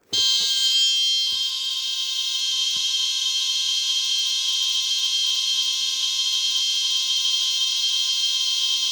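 Piezo buzzer of a homemade 2N2222 transistor burglar-alarm circuit sounding a steady, high-pitched alarm tone, set off by a click of the switch. It starts abruptly, a little louder and unsteady for about the first second, then holds even.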